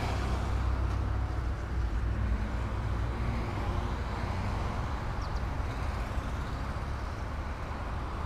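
Steady low hum of road traffic, with no single event standing out.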